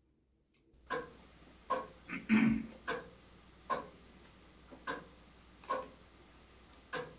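A person chewing a mouthful of crusty garlic bread: a crunch with each chew, roughly once a second, the loudest about two and a half seconds in.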